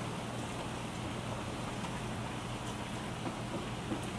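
Steady rain falling during a thunderstorm, with scattered drops ticking close by.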